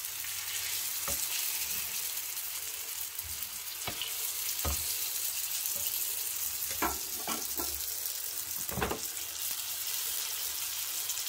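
Samosas shallow-frying in hot oil in a frying pan, a steady sizzle, with several short knocks of a metal slotted skimmer and the pan, the loudest near the middle.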